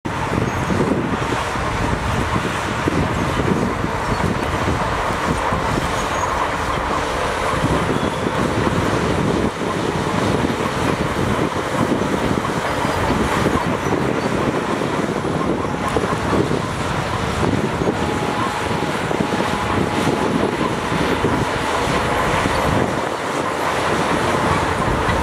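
Heavy earthmoving machinery running steadily: the diesel engines and running gear of a bulldozer and dump trucks working.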